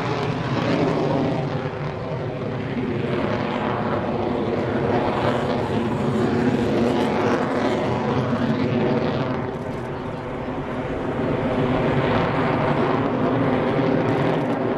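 Jet noise from an F-22 Raptor's twin Pratt & Whitney F119 turbofans as the fighter manoeuvres overhead: a loud, continuous rushing roar with a wavering tone that dips about ten seconds in and then swells again.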